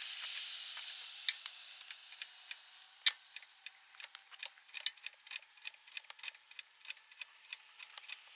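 Hand-pumped hydraulic engine hoist lifting a loaded pallet: a run of light, irregular metallic clicks and ticks from the pump handle, chain and hook, with two sharper clicks in the first few seconds. A faint hiss fades out over the first two seconds.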